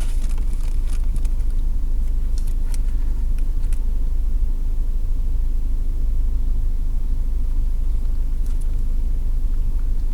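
Steady low rumble of a car heard from inside the cabin, with a few faint clicks and rustles in the first few seconds and again near the end.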